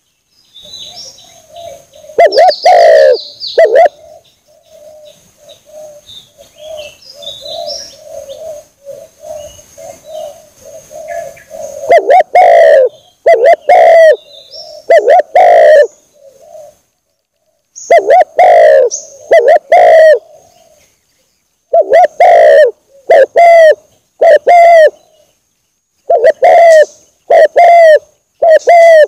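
Spotted dove cooing in loud, repeated phrases of two or three notes, with a softer run of quick low coos partway through and faint high chirps of small birds. It is a lure call of the kind played to draw spotted doves in.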